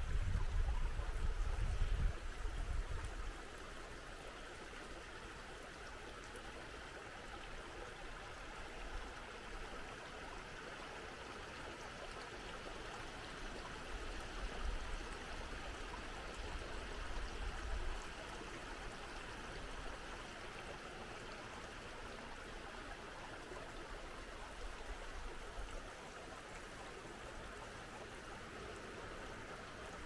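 Small creek running steadily, a constant rushing hiss. Wind gusts buffet the microphone with a low rumble in the first few seconds and again around the middle.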